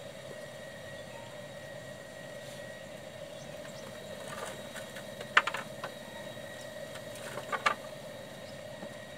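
A steady motor hum, like a distant engine running. A few sharp clicks and taps stand out over it about halfway through and again near the end.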